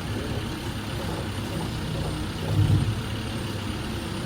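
A heavy vehicle's engine running steadily as a low rumble, swelling briefly a little past halfway.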